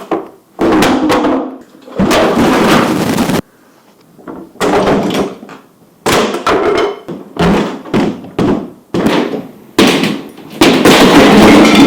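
Wooden kitchen cabinets being pried and knocked apart: a series of loud thuds, knocks and scraping bursts of wood and fasteners, some starting and stopping abruptly.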